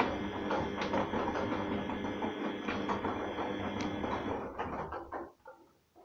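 Arçelik front-loading washing machine's drum turning wet laundry on a synthetics 40 °C wash: a motor hum with water sloshing and soft knocks. It fades and stops about five seconds in, when the drum comes to rest.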